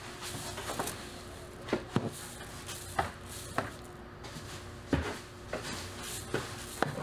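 Scattered knocks and clatters of objects being handled, about seven sharp ones at uneven intervals, over a steady machine hum.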